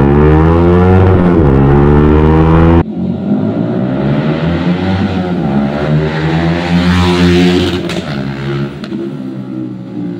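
Yamaha Sniper 155's single-cylinder engine through a TRC aftermarket exhaust, revved hard under acceleration: the pitch rises, dips at each gear shift and rises again. About three seconds in the sound abruptly turns quieter and thinner but keeps rising and falling. A couple of sharp pops about eight seconds in are backfire when the engine is taken to high RPM.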